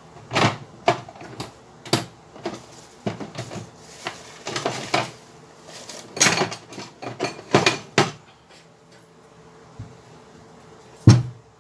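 Metal parts being handled, including an aluminium thermostat housing: an irregular run of clinks, knocks and rustles for about eight seconds, then a pause and a single dull thump near the end.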